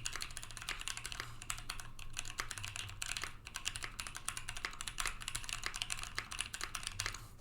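Fast, continuous typing on a Volcano660 mechanical keyboard with Cream + T1 switches on 52 g springs and EPBT 9009 PBT keycaps: a dense stream of sharp key clacks that tails off near the end.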